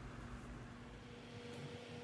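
Faint room tone: a steady low hum with a light hiss, a second higher hum tone joining under a second in.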